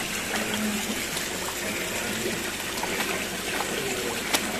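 Steady splashing, running water around a crowd of ornamental fish.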